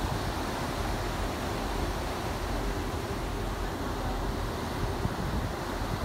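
Steady wind with a low, even rumble, typical of being on the deck of a ship under way, and wind buffeting the microphone.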